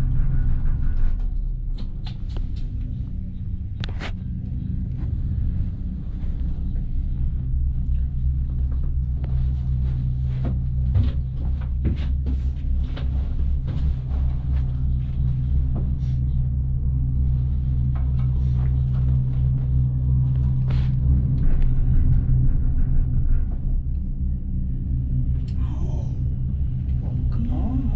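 Steady low rumble inside a moving gondola cabin as it rides along the cable, with scattered clicks and knocks from the cabin.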